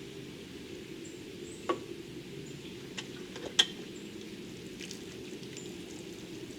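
A few light clicks and taps of pool filter parts being handled while being lubricated, the sharpest about three and a half seconds in, over a steady low hum.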